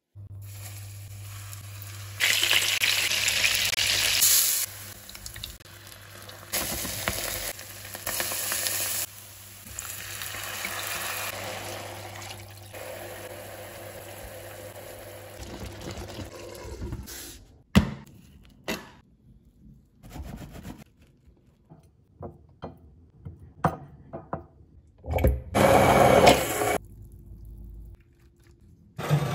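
A run of cooking sounds in a pan: long stretches of hissing from liquid poured in and bubbling and sizzling in a hot frying pan, with the sauce simmering. Then a scatter of short clicks and knocks, and a brief loud burst of noise near the end.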